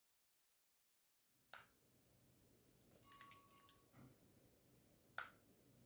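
Metal cap of a Parker Odyssey fountain pen clicking onto the barrel: a sharp click about a second and a half in and another near the end, with a run of lighter metallic ticks and a brief ring in between. The cap's click is nice but not really satisfying.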